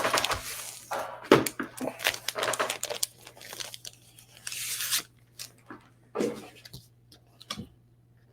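Plastic comic-book bags and paper being handled, crinkling and rustling in irregular bursts for the first five seconds, then a couple of short sharp rustles near the end.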